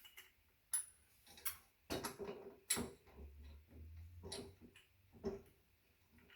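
Irregular clicks and knocks of metal parts being handled while working on an ebike's rear hub-motor wheel and frame, with a brief low rumble in the middle.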